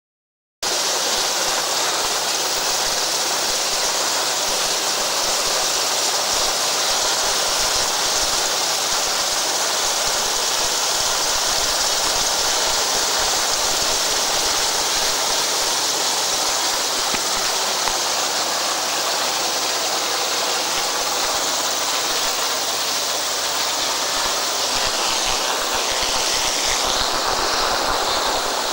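Steady rushing noise of wind and spray on the onboard camera of an Atlantic 85 inshore lifeboat under way at speed, starting abruptly about half a second in.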